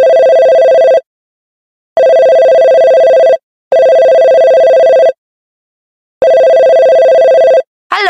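Loud two-tone electronic signal sounding in four long, identical blasts of about a second and a half each, separated by short gaps of dead silence.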